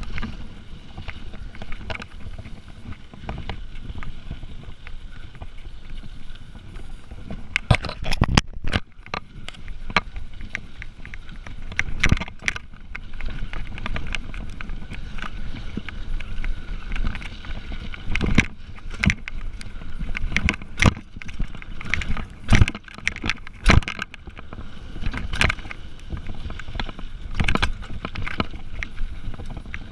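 Mountain bike running fast downhill on a dirt trail: a steady rumble of tyre and wind noise, broken by frequent sharp clatters as the bike jolts over bumps and rocks, most of them from about eight seconds in.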